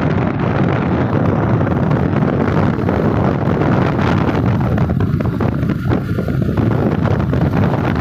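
Wind buffeting the microphone: a loud, continuous low rumble that rises and falls slightly.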